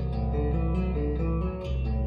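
Instrumental music: a melody of short notes changing a few times a second over a steady low bass note.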